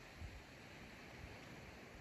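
Faint steady outdoor hiss with low, uneven rumbles of wind on the microphone.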